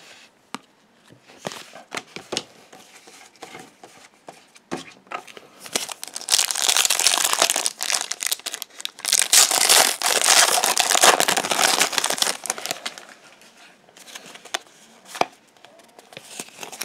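Trading card pack wrapper crinkling loudly as it is worked open by hand, in two long stretches starting about six seconds in. Before and after, lighter clicks and rustles of the cards being handled.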